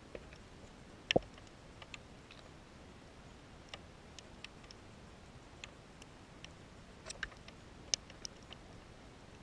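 Scattered sharp underwater clicks and ticks, irregular and a few each second at most, with one louder knock about a second in.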